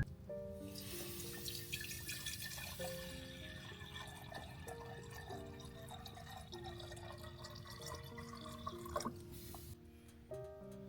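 Soft background music of held, sustained notes, over a steady hiss of running water that stops about nine seconds in.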